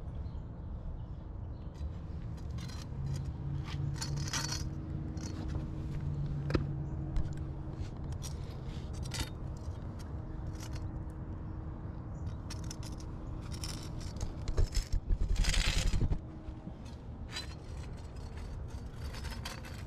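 A flat steel finishing tool scraping along a fresh caulk bead in the joint between brick and concrete, in a series of short strokes. About three-quarters of the way through comes a louder, rougher scrape lasting about a second and a half.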